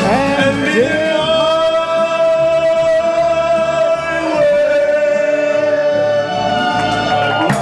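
Karaoke singing over a backing track: a voice holds one long note for about three seconds, then slides into another held note.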